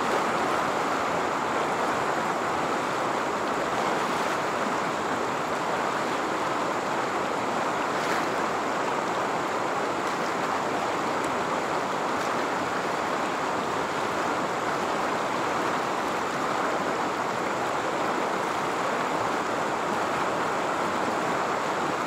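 Steady rush of a shallow river's rapids flowing over rocks.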